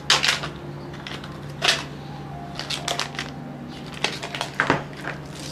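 Plastic packaging crinkling and tearing as a wrapped block of cream is opened by hand, in a string of short, irregular crackles, over a steady low hum.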